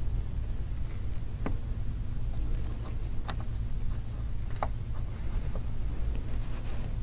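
A few light, sharp clicks of small tools and metal parts as an iPhone 5's cable shield is fitted, over a steady low hum.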